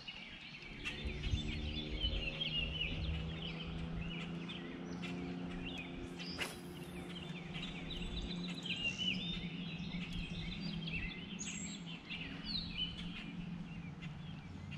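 Songbirds chirping and singing. From about a second in, a steady low motor hum joins them.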